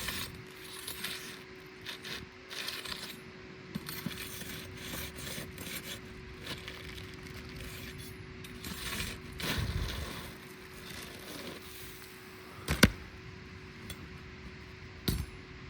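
Asphalt shingles scraping and rustling as they are worked loose on a roof, with a sharp click about thirteen seconds in and a smaller one near the end. A faint steady hum runs underneath.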